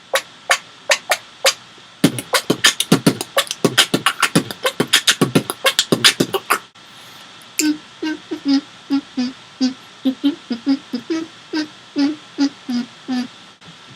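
Beatboxing: a fast run of sharp mouth clicks and snare-like hits for about six seconds. After a short pause comes a steady rhythmic pattern of short, low, pitched vocal notes, about three a second.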